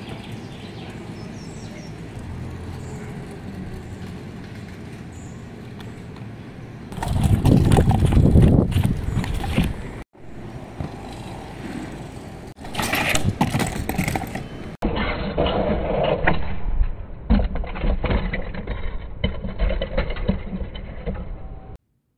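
LEGO Technic motorcycle models rolling over deck boards, their wheels rumbling and plastic parts rattling, in several short takes that cut in and out.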